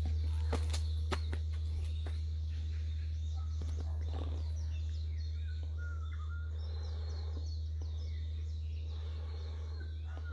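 Low hum of a large bell dying away slowly after a strike, with birds chirping in the background.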